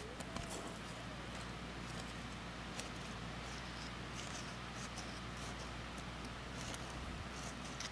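A thin wooden stick scraping and digging through dry, gravelly soil: irregular gritty scratches as loose earth and small stones are raked aside.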